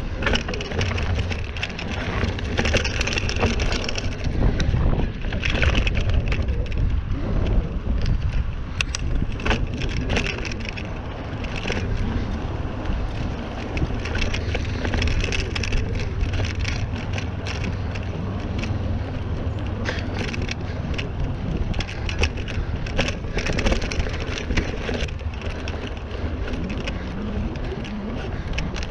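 Mountain bike riding over a dirt trail: tyres crunching over the surface and the bike rattling with many small clicks and knocks over bumps, with wind buffeting the microphone as a steady low rumble.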